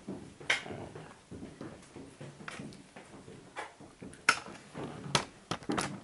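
Footsteps and small knocks as people move about a basement: a few sharp clicks and thuds at irregular intervals, the loudest about four seconds in and again a second later.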